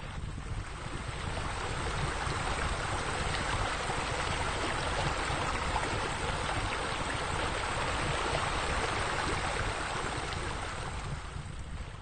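Steady rushing of falling water, swelling in over the first couple of seconds and fading away near the end.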